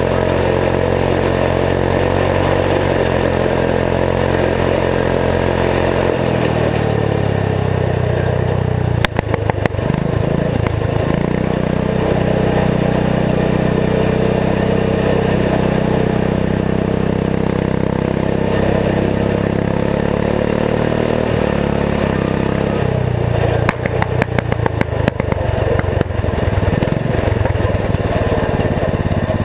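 Turbocharged 14 hp single-cylinder Kohler engine of a Gilson garden tractor running under way, its pitch stepping up about six seconds in and dropping back near the end. Bursts of sharp crackles break in about nine seconds in and again about three quarters of the way through.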